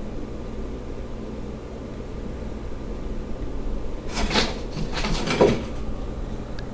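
A steady low hum, broken about four seconds in by two short bursts of scraping and knocking as a bearded dragon lunges at a blue-tailed skink in a glass vivarium.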